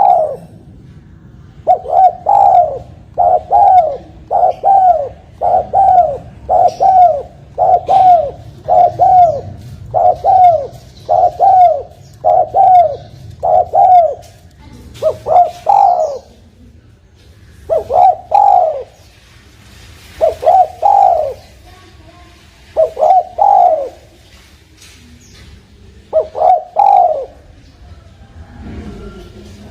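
Spotted dove cooing: a quick, regular run of short arched coo notes, about one and a half a second, then from about halfway through slower phrases of two or three coos every two to three seconds.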